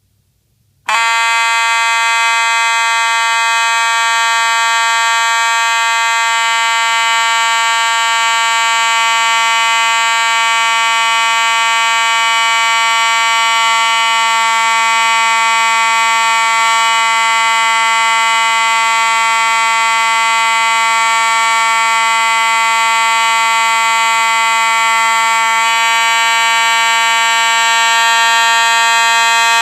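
Simplex 4903-9219 electromechanical fire alarm horn sounding a loud, continuous buzzing tone, starting about a second in and running without a break, with a slight change in its tone a few seconds before the end.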